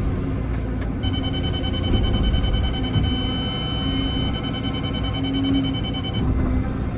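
Excavator engine and hydraulics running under load, with a hum that rises and falls and a steady high-pitched tone that starts about a second in and stops about six seconds in.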